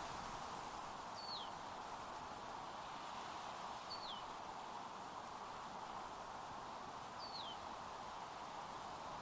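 Faint steady background hiss with three short, falling chirps about three seconds apart: a bird calling.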